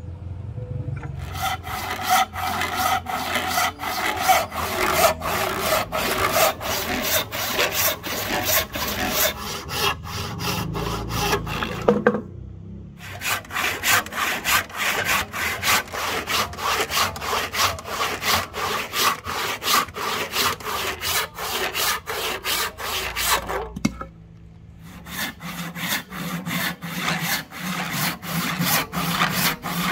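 Hand saw cutting through wood in steady back-and-forth strokes, stopping briefly twice, about twelve and twenty-four seconds in, then carrying on.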